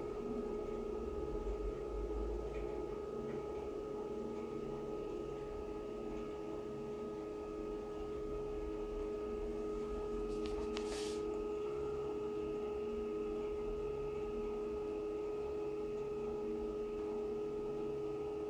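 Cruse CS ST RD 185 planetary scanner running during a scan: a steady machine hum with a held mid-pitched tone and a fainter low tone that comes and goes. A short hiss comes a little past the middle.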